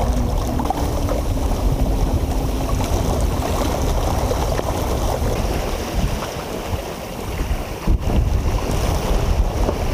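Wind buffeting the microphone over water rushing and splashing past the hull of a small sailboat running under spinnaker, easing briefly about seven seconds in.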